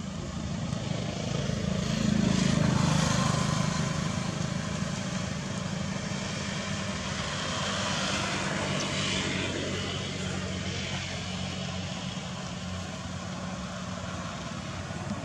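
A motor engine drones steadily in the background, swelling louder about two seconds in and then easing back.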